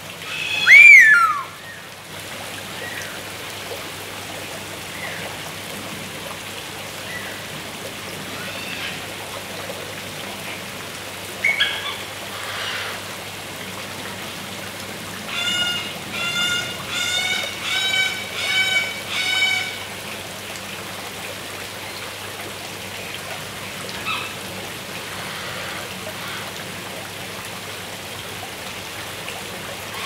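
Palm cockatoo whistling. A loud whistle rises and falls about a second in, then come scattered softer calls, and in the middle a run of about six short whistled notes in quick succession, all over a steady background hiss.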